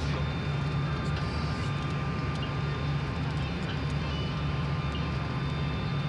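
Steady engine drone in an airliner cabin in flight: a constant low hum with faint, steady high-pitched whines above it.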